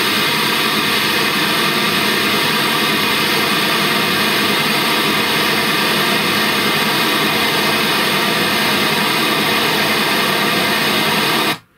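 Takara Dance TDA-6B stage midbass speaker playing a steady hiss of test noise for a loudness measurement. It cuts off abruptly near the end.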